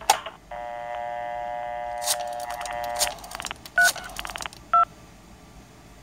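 Telephone line heard through a handset receiver: a hook-switch click, then a steady vintage dial tone from an old recording for about two and a half seconds. Rapid rotary-dial pulse clicks cut into it, and two short DTMF beeps follow about a second apart as the analog telephone adapter converts the dialled pulses into tones.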